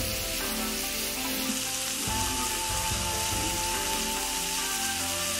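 Beef steak sizzling on a small tabletop grill pan over a fuel flame, a steady hiss, with soft background music holding long notes.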